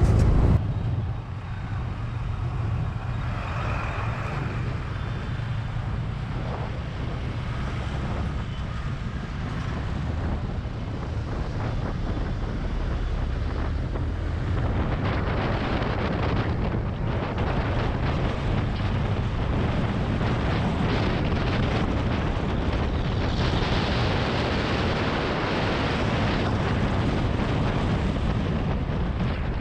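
Yamaha motorcycle engine running while riding in traffic, with wind buffeting the microphone. The wind rush grows stronger about halfway through as the bike picks up speed.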